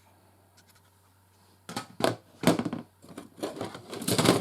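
Handling noise as fire alarm devices are moved about in their box: a run of short scraping and rustling sounds that starts a couple of seconds in and is loudest near the end.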